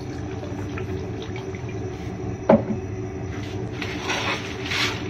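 Pot of water with river snails heating on the stove for blanching, over a steady low hum. There is a single knock about two and a half seconds in, and a hiss builds near the end.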